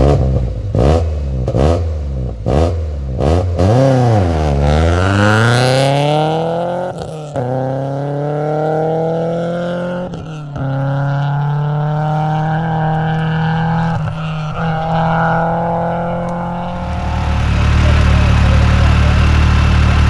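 Subaru Impreza rally car's flat-four engine blipped hard several times on the start line, then launching and accelerating away through the gears, pitch climbing and dropping at each of two shifts as it pulls into the distance. Near the end a side-by-side UTV's engine takes over, running low and steady.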